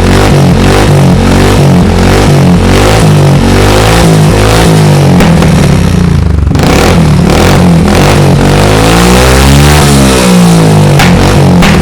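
Scooter's single-cylinder four-stroke engine through a GPR aftermarket exhaust, revved in repeated quick blips with the pitch rising and falling about once a second. The revs drop off briefly around the middle, then a longer rev falls and climbs again near the end.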